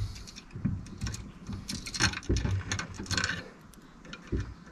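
Small metal bolts and nuts being fiddled into a light bar mounting bracket by hand: irregular light clicks and taps of metal on metal, with a slightly firmer knock near the end.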